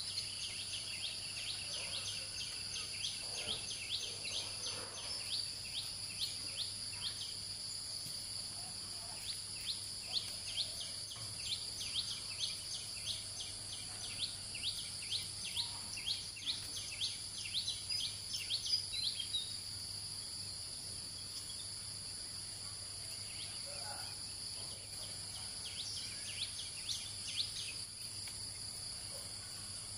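Insects droning steadily at a high pitch, with a long run of rapid, repeated chirps laid over the drone; the chirping stops about two-thirds of the way through and returns briefly near the end.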